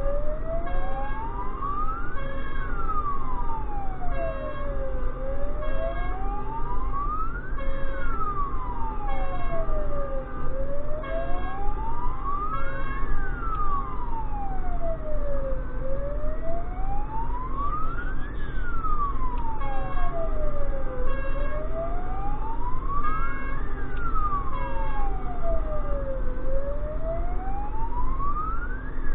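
Emergency vehicle siren on a slow wail, rising and falling in pitch about every five seconds, heard from inside the vehicle's cab over steady engine and road noise.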